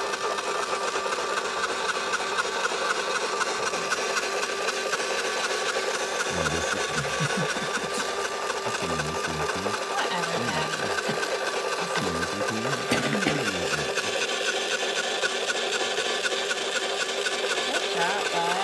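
Small electric motor of an Eggmazing egg decorator spinning an egg, a steady whir with a fine, fast, even ticking from its drive.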